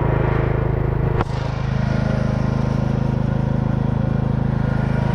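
1979 Sears GT16 lawn tractor's engine running steadily as the tractor drives along a dirt road. A sharp click about a second in, after which the engine note changes slightly.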